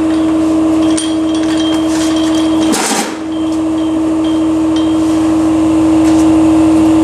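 Electric air blower running with a steady, even whine. About three seconds in comes a brief crash.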